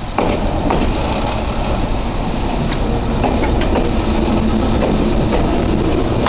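Meitetsu 5000 series electric train pulling into the station and running past close by: steady wheel-on-rail running noise with scattered clicks. It gets suddenly louder just after the start.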